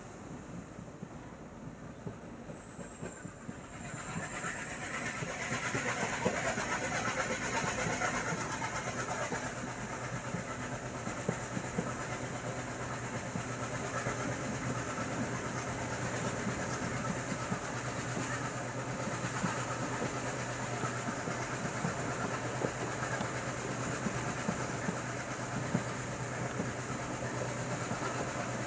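Passenger train running along the track, heard from on board: a steady rumble with a low hum and light clicks of the wheels over rail joints. It grows louder about four seconds in.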